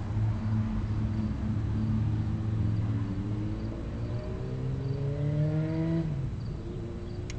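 Electric go-kart's DC drive motor, spinning its wheels free on a jack stand during its first test run, humming steadily. About three seconds in, its whine rises in pitch as it speeds up, then drops back about six seconds in.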